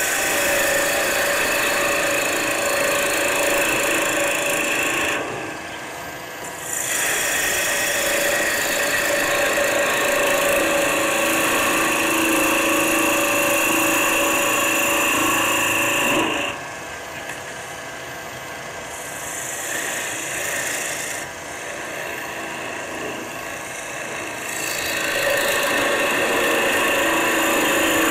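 A gouge cutting a spinning maple spindle on a wood lathe: a steady scraping hiss with a faint ringing tone. The cut stops for a moment about five seconds in. It goes lighter and quieter from about sixteen seconds until near the end, then comes back in full.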